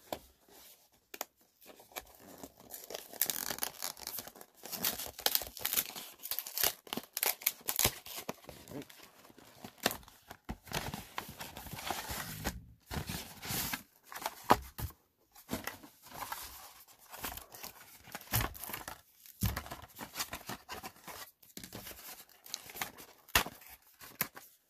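Plastic shrink wrap being torn off a Magic: The Gathering Commander deck and crinkled: irregular tearing and crackling rustles, broken by a few short pauses.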